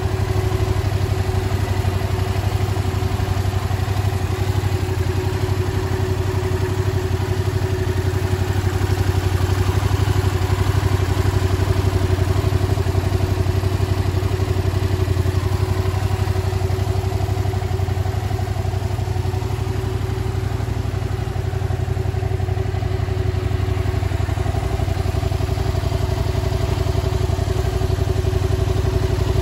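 Yamaha YZF-R7's 689 cc parallel-twin engine idling steadily.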